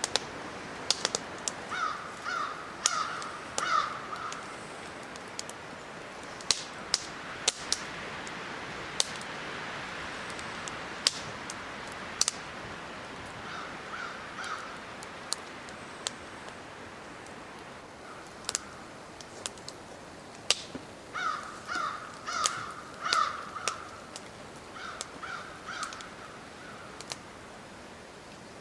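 A crow cawing in several runs of three to six short, harsh caws, with scattered sharp clicks between the runs.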